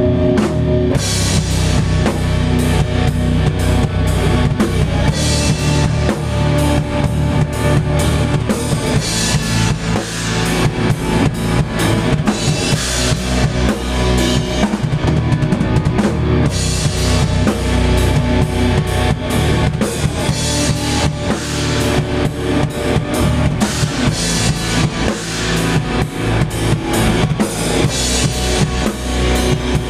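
A band playing loudly: a drum kit with bass drum and cymbals keeps a dense, steady beat under electric guitar.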